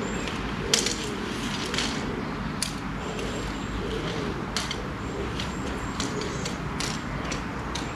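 Handling noise from coaxial cable and antenna hardware being laid out on cobblestones: scattered sharp clicks and knocks, about one a second, over a steady low background rumble.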